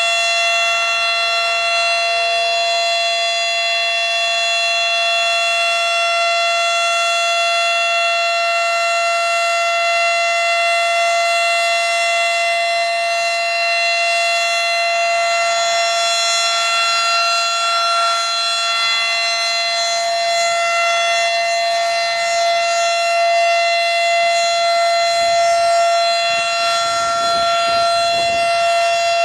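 Federal Signal Model 5 outdoor warning siren sounding at full speed, holding one steady, unwavering pitch throughout.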